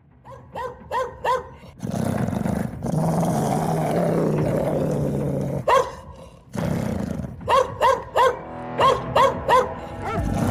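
Dog barking in quick runs of three short barks, with a long growl between the runs.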